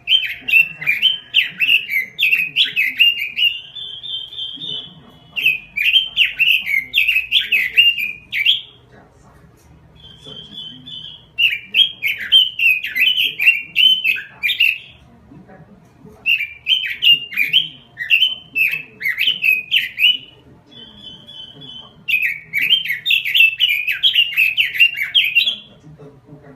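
Red-billed leiothrix (Pekin robin) singing in full voice: five bursts of rapid, jumbled warbling, each a few seconds long, with short runs of three or four high, even notes in the pauses between.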